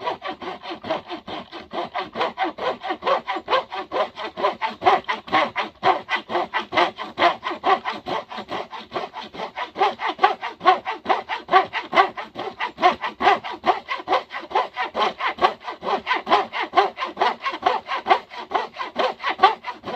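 Hand saw cutting a kerf into the top of a red elm axe handle, in quick, even back-and-forth strokes of about four a second.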